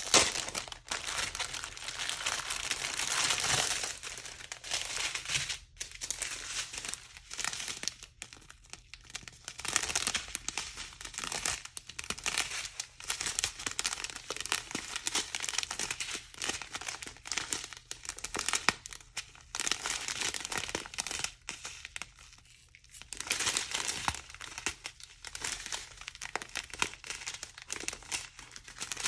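Plastic packets of diamond-painting resin drills crinkling and rustling as they are handled, in irregular bursts with short pauses.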